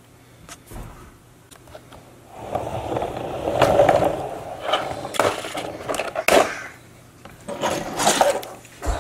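Hard plastic scraping and rattling, with several sharp clicks, as the clear plastic cover of a toy car carrying case is handled and pulled off. The scraping starts about two seconds in; the clicks follow.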